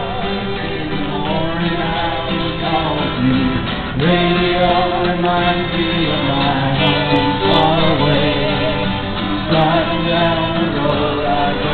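Live acoustic guitar strumming with several voices singing a song together, a violin playing along.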